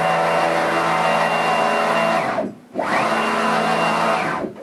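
The axis drive motors of a home-built 2×2 m CNC router whine as the machine makes rapid traverses at nearly 23 m/min. The pitch climbs as it speeds up, holds steady at full speed, and falls as it slows to a stop. This happens about two and a half seconds in, with a brief break as it reverses, and again near the end.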